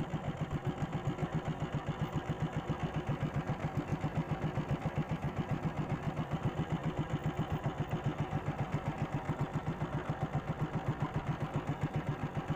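A small boat's motor running steadily at low trolling speed, an even, fast low throb that holds constant.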